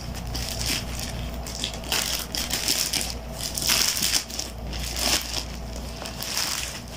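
Packaging crinkling and rustling in irregular bursts as a clothing item is unwrapped from its parcel.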